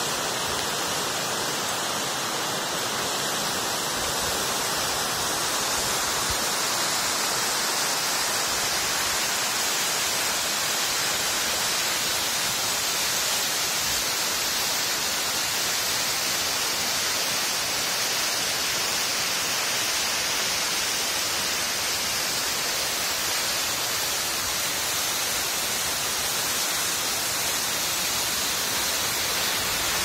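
Waterfall and fast mountain stream: a steady rush of white water pouring over rocks, with a hiss that grows brighter a few seconds in.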